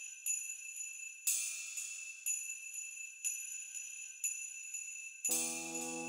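Music built on jingle bells shaken in a steady beat, about once a second, over a high shimmering ring. Near the end a sustained low instrument chord comes in.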